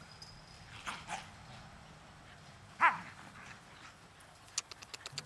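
Siberian husky puppy giving one loud, short yelp that falls steeply in pitch, about three seconds in, with a couple of fainter, shorter calls about a second in.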